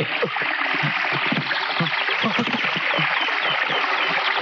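Steady rushing hiss of water, with a wounded man's short, low grunts and heavy breathing over it.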